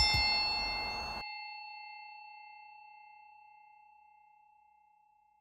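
The closing note of background music: a single bell-like chime that rings out and fades away over about three seconds. The faint background hiss under it cuts off about a second in.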